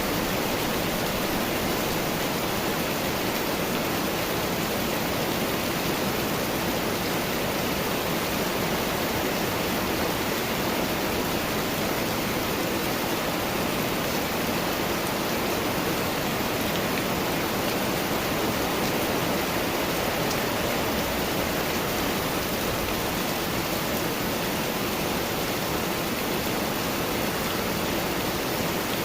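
Steady rain falling: an even, unbroken hiss with no separate drops or thunder standing out.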